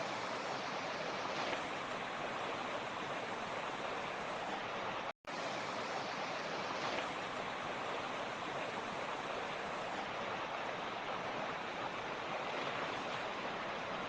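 Mountain creek rushing steadily over its bed, a continuous even wash of water noise. A split-second cut to silence breaks it about five seconds in.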